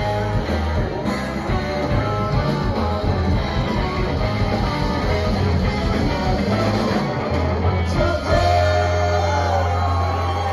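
Live rock band playing with electric guitars, bass guitar, drums and singing, heard from among the audience. About eight seconds in the drum hits drop away and the band holds a long sustained chord.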